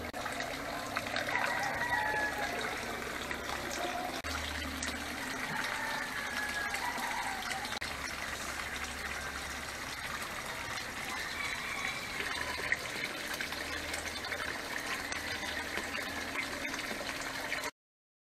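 Steady splashing of water pouring from a pipe into a concrete koi tank, with chickens clucking and crowing in the background. The sound stops abruptly near the end.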